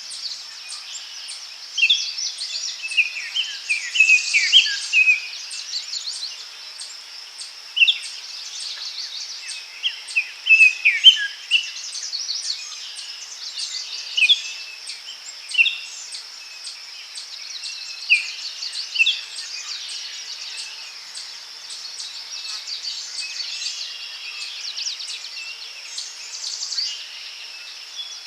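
Forest ambience: songbirds singing short, quick phrases every few seconds over a steady, high-pitched insect chorus.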